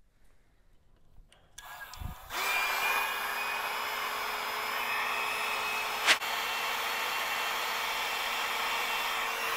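A handheld electric hot-air blower switches on about two seconds in and runs steadily, a rush of air with a steady hum, heating the figure's soft plastic hoodie to soften it. A sharp click about six seconds in, and the blower cuts off at the end.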